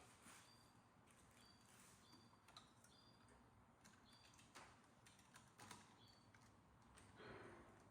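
Near silence, broken by faint scattered clicks and taps and short, high chirp-like tones.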